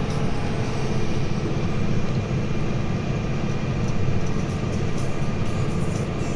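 Tractor engine running steadily: an even, unbroken low drone.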